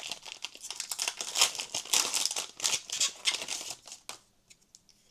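The foil wrapper of a Pokémon TCG booster pack crinkling and tearing as it is ripped open by hand. The crackly rustling stops about four seconds in.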